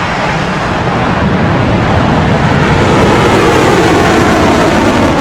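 Rocket launch: the engines' roar at liftoff, swelling over the first second and then holding steady and loud.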